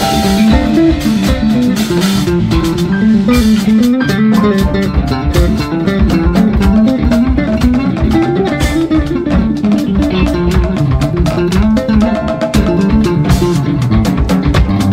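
Live band playing an instrumental passage: drum kit keeping a steady beat under guitar, electric bass and piano.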